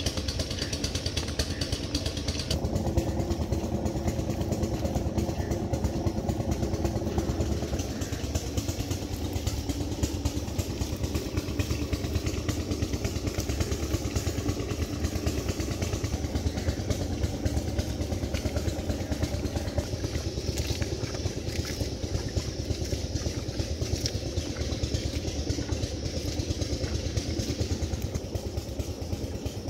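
A small engine running steadily at an even, low idle, with no change in speed.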